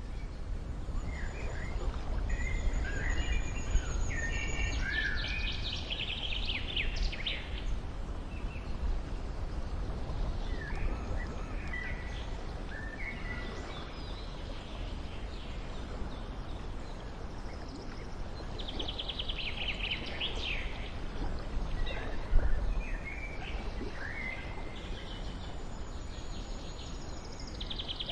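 Songbirds chirping and trilling over a steady low outdoor rumble, with dense trills twice and a brief low thump about two-thirds of the way in.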